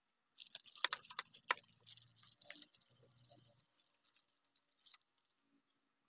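Clear plastic wrapping crinkling and rustling as hands handle a small microscope part wrapped in it, with a few sharp clicks about a second in. The rustling dies away about five seconds in.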